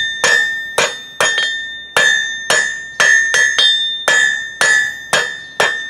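Blacksmith's hammer striking hot steel on an anvil at about two blows a second, each blow leaving the anvil ringing with a high steady tone. The smith is fullering and drawing a steel bar to a taper.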